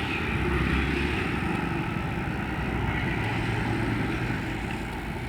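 Motorbike engine running steadily under way, with road and wind noise.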